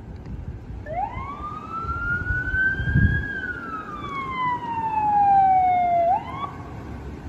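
Ambulance siren in wail mode, coming in about a second in: one slow rise and a slower fall in pitch, then a sharp jump upward near the end as the next cycle starts, over a low rumble.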